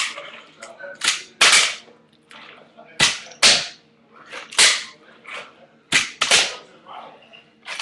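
Handboard clacking hard against a surface as it is popped and flipped in tricks: a series of sharp clacks, mostly in pairs about half a second apart, four times over.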